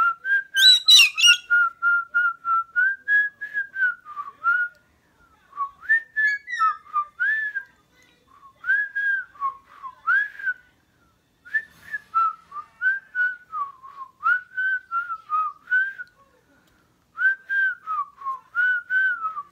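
A whistled tune in short phrases with pauses between them: a person whistling together with a pet galah cockatoo. A brief harsher, higher sound comes about a second in.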